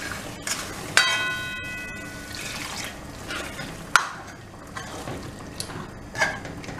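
A steel ladle stirring thick mutton curry in a metal pot: wet scraping and squelching, with a sharp knock about a second in that rings briefly like struck metal, and further knocks about four and six seconds in.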